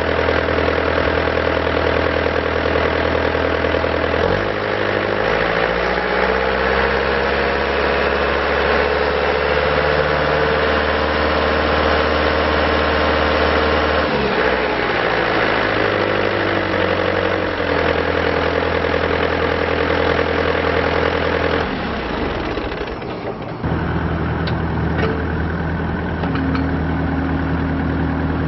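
Bobcat T300 skid steer's diesel engine running, its speed and pitch shifting several times as it works, with a brief dip a little over three-quarters of the way through before it settles into a lower, steadier note.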